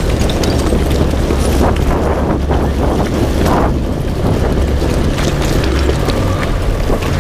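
A 4WD driving along a wet, muddy bush track, heard from a camera mounted on the outside of the vehicle. There is a steady low engine and tyre rumble with wind buffeting the microphone, and scattered knocks and splashes from the tyres on the wet track.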